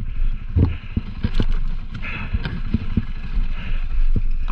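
A bike descending a rocky trail: wind buffeting the on-board microphone over a low rumble, with frequent knocks and rattles as the wheels hit rocks and roots.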